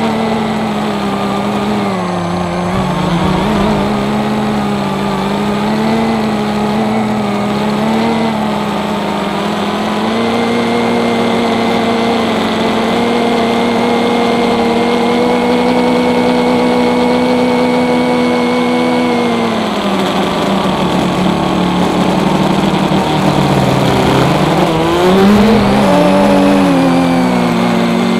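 Brushless motors and propellers of a scratch-built Whaka Battle-H FPV quadcopter, heard from on board, buzzing steadily in flight. The pitch shifts with throttle: it falls away about two-thirds of the way through, then climbs sharply again near the end.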